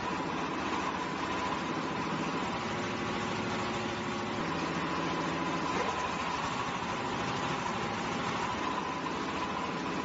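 Diesel engine of a tipping-bucket concrete mixer running steadily.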